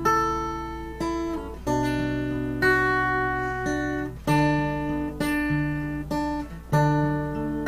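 Acoustic guitar strumming chords, one strum roughly every second, each chord ringing out before the next.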